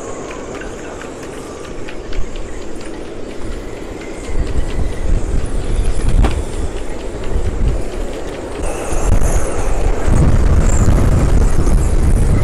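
Storm-force wind gusting across the marina, rumbling heavily on the microphone, with the strongest gusts about four seconds in and again near the end, and scattered clicks and rattles among the moored boats.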